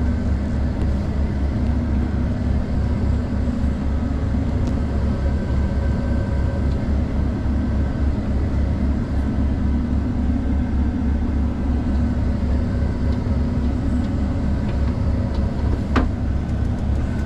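Heavy diesel farm vehicle's engine running steadily, heard from inside the cab as a continuous low drone. There is a single sharp click near the end.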